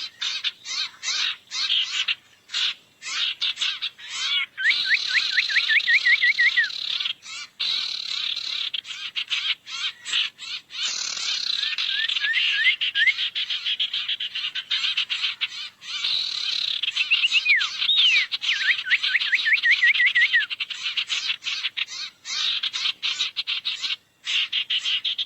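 Bird-lure recording of sirtu birds calling: a dense, rapid chatter of clicks with repeated runs of short rising chirps.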